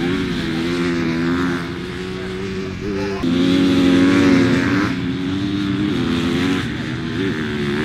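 Motocross bikes passing one after another, their engines revving and rising and falling in pitch as the riders accelerate. Loudest from about three to five seconds in.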